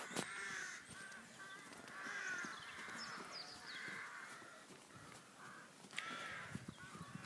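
Crows cawing repeatedly, faint and overlapping, with a few thin high bird chirps about three seconds in.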